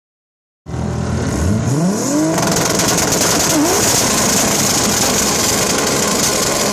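A 2JZ-engined Volvo 940 drag car doing a burnout. The engine revs climb sharply about a second in, then the spinning rear tyres keep up a steady, loud screech over the high-revving engine.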